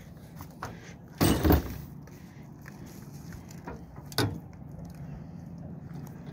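Knocks and thumps of a landing net holding a bass against a metal boat as the net is brought aboard and handled: a loud double thump about a second in, a sharp knock about four seconds in, and a few lighter clicks.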